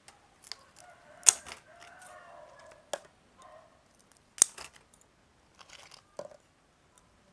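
Sharp cracks of crab shells being cut in half, four in all, spaced a second or two apart. A rooster crows in the background about a second in.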